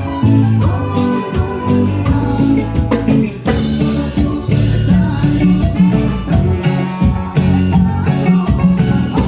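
Band music with bass, guitar and drums keeping a steady beat, in a Latin American style.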